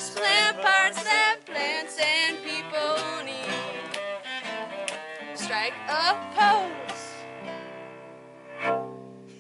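Bowed cello and strummed acoustic guitar playing the closing bars of a folk song: a wavering, vibrato melody with a slide up and down about six seconds in, then a final held chord that rings and fades out, with one last accent near the end.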